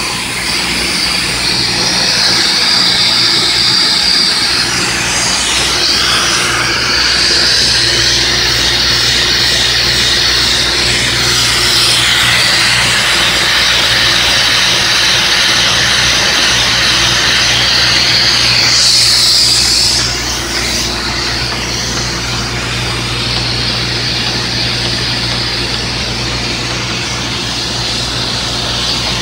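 Bobst Mistral 110 folder-gluer running: a steady machine hum under a strong high hiss, loud and continuous, dropping a little in level about two-thirds of the way through.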